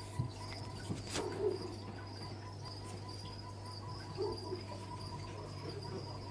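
Jungle ambience with crickets or other insects trilling steadily in a high continuous band, over a steady low hum. A sharp click comes about a second in, and a few soft low calls are scattered through it.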